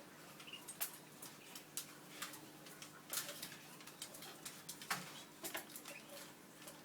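Irregular small clicks and taps from canaries moving about their cage and nest, with a few faint high peeps near the start.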